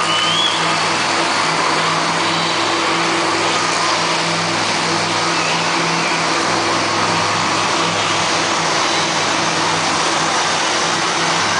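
Monster truck engines running loud inside an indoor arena, a steady heavy drone with no let-up.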